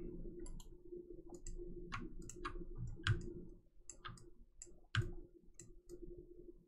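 Irregular clicks of a computer mouse and keyboard, spaced about a second apart, over a faint steady hum.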